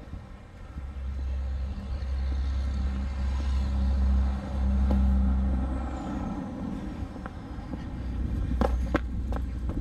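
Heavy steady low rumble outdoors, with a faint hum in the middle. Several footsteps on concrete steps near the end.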